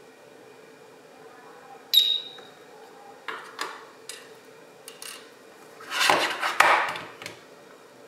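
A short high beep from the Slim Line 2 security stand about two seconds in, confirming that the remote control has been paired, followed by clicks of a key-fob remote set down on a wooden table and a burst of plastic clatter as the unit is handled and turned over.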